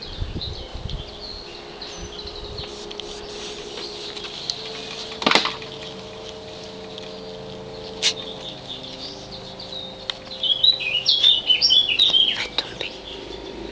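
Small birds chirping and singing, with a louder run of quick chirps about ten seconds in. Two sharp clicks come in the middle.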